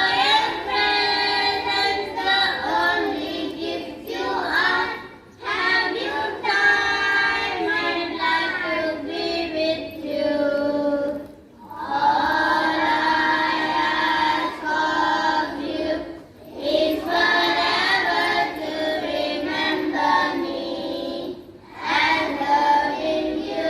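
A group of children singing together in unison, in phrases of about five seconds with brief breaks between lines.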